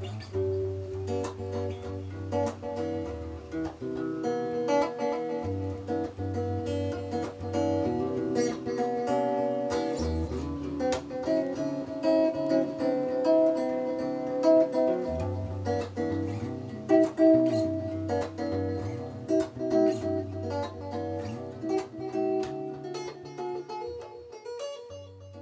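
Guitar notes and chords played through a Boss DD-5 digital delay pedal, fading near the end. The pedal's delay is working again after a faulty ribbon cable was replaced.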